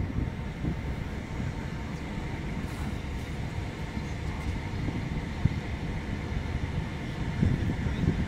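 MÁV M61 NOHAB diesel-electric locomotive, with its EMD 567 two-stroke V16 diesel engine, approaching at low speed with a steady low engine sound that grows a little louder near the end.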